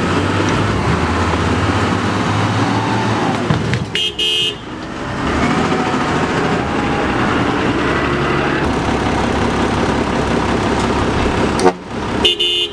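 Heavy diesel engines of a tanker truck stuck in mud and a wheel loader pushing it, running steadily under load. A short horn toot sounds about four seconds in and another near the end.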